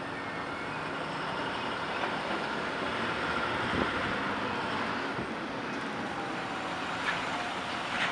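City street traffic noise: a car drives past and a diesel International school bus approaches and pulls in close.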